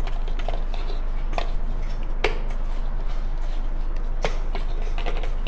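Soft rice-flour dough being mixed with a little oil in a steel bowl, giving a few scattered light clicks and taps over a steady low hum.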